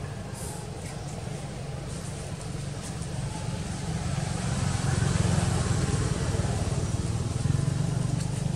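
A motor vehicle's engine rumbling steadily, growing louder about halfway through as it comes closer.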